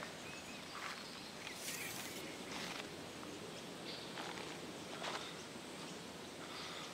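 Faint outdoor background noise with a few scattered, irregular scuffs and crunches of footsteps on a dirt road.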